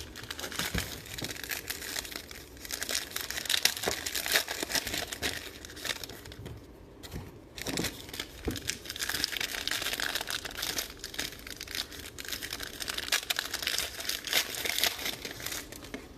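Plastic wrapping on trading card packaging being torn open and crumpled by hand: a dense, continuous crinkling that pauses briefly about seven seconds in.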